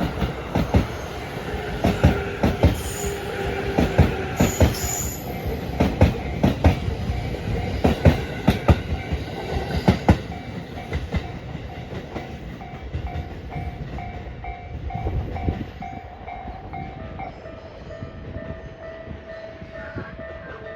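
JR East E257 series electric multiple unit passing over a level crossing, its wheels clacking in pairs over the rail joints about every two seconds, loud at first and dying away after about ten seconds as the last car passes. The level crossing's warning bell rings on throughout in a steady repeating ding.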